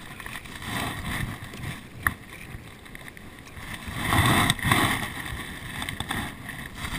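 A hooked largemouth bass splashing at the surface beside the boat as it is reeled in and lifted out of the water, loudest about four to five seconds in. Before that comes the quieter sound of a spinning reel being cranked.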